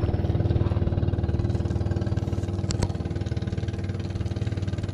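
A small engine running steadily at idle, a low even drone, with one sharp click about three seconds in.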